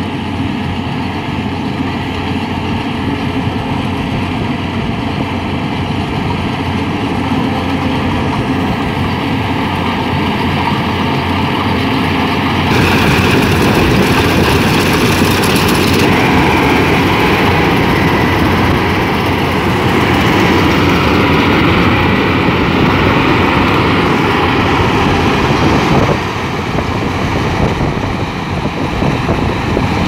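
Yanmar AW70 rice combine harvester running steadily under load: its diesel engine and threshing machinery make a continuous mechanical drone. The sound gets louder and brighter about halfway through and eases a little near the end.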